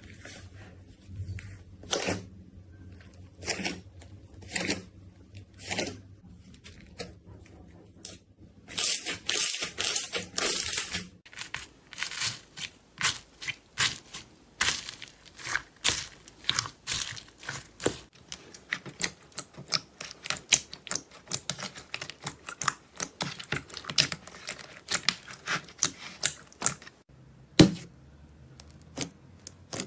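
Slime being pressed and squeezed by hand, making sharp popping and clicking sounds. A few spaced pops give way to a dense crackle, then quick clicks follow one after another, with one loud snap near the end.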